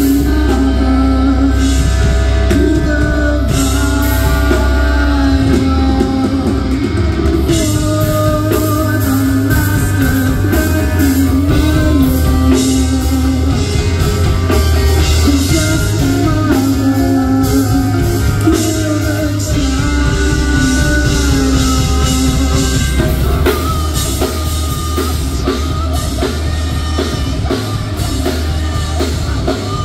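Live rock band playing loudly: a woman singing into a microphone over electric guitar, bass guitar and a drum kit.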